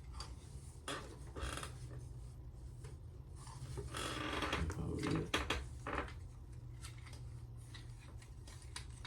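Plastic parts of an Optimus Prime transforming toy clicking and knocking as its joints are moved by hand, with a longer rubbing rustle about four seconds in.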